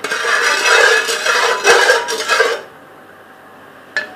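A metal spoon scraping and stirring sugar in oil in a cooking pot, in quick strokes, while the sugar is fried to caramelise. The stirring stops about two-thirds of the way through, and a single light click follows near the end.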